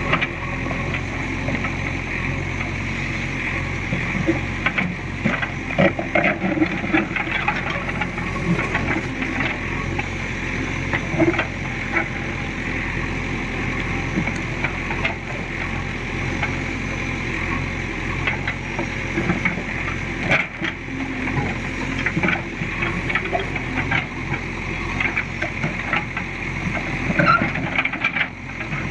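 JCB 3DX backhoe loader's diesel engine running steadily, with scattered knocks and scrapes from the digging.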